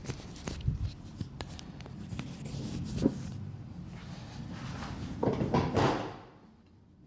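Rustling and scattered small clicks from a patient being handled and positioned during a chiropractic adjustment. A sharper click comes about three seconds in, and a longer, louder rustle around five to six seconds in.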